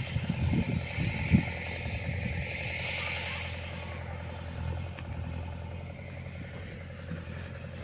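An engine running steadily with a low, even hum, with a few low knocks in the first second and a half.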